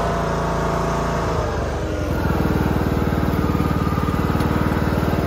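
Riding lawn mower's small engine running with an even, rapid pulsing beat; it becomes louder and closer about two seconds in.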